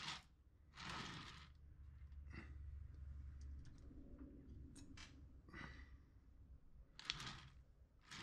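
Quiet hand-sculpting sounds: several short soft rustles and clicks from hands and a modelling tool on an oil-clay figure, with breaths between, spaced a second or two apart over a faint low hum.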